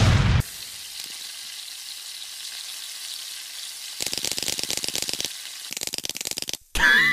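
Cartoon sizzling sound effect for a charred, smoking letter: a steady hiss that turns to rapid crackling about four seconds in. It follows the tail of a loud blast at the very start, and a short loud sound with wavering pitch cuts in near the end.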